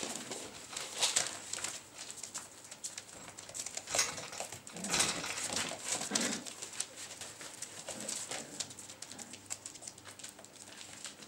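Puppies playing over a plastic sheet: crackly crinkling of the plastic as they tug and trample it, with soft puppy grunts and whimpers, loudest about four to six seconds in.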